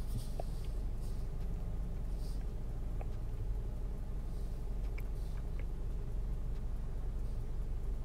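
Steady low hum of room tone with a few faint, light taps and clicks from fingers working a smartphone touchscreen on a table.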